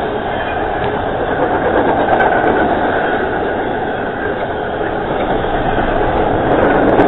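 Freight train of trailers on flatcars rolling past: a steady rumble and rattle of steel wheels on the rails, swelling a little near the end.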